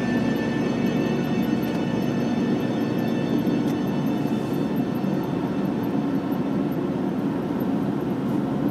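Steady car noise heard from inside the cabin of a moving car: engine and road rumble, no singing or music.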